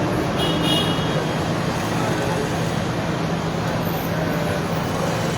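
Steady road-traffic noise with a constant low engine hum underneath. About half a second in, a brief high-pitched tone sounds for under a second.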